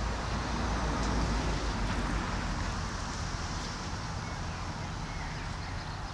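Road traffic noise, a steady rumble that swells about a second in and then eases.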